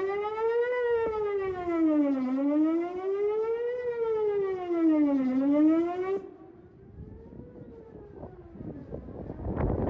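Whelen WPS-4008 electronic outdoor warning siren sounding its monthly test tone, a loud wail that sweeps up and down in pitch about once every three seconds. It cuts off abruptly about six seconds in, leaving a faint echoing tail, and a rush of broad noise builds near the end.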